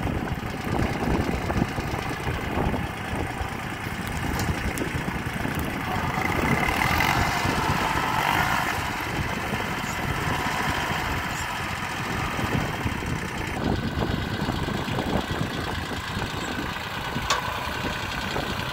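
VST Shakti MT 180D compact tractor's diesel engine running steadily at low speed while its rear hydraulic fork lifts a heap of straw. The sound grows somewhat louder and brighter for a few seconds near the middle.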